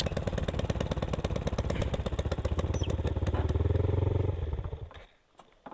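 Single-cylinder motorcycle engine running with an even pulse, then shut off and dying away about four and a half seconds in.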